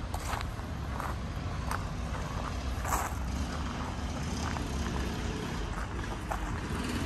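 Town-street ambience: a steady low rumble with scattered short clicks and taps, including one louder tap about three seconds in.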